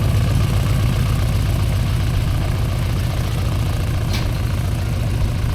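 Gas-powered RC model airplane engine idling steadily, with one short click about four seconds in.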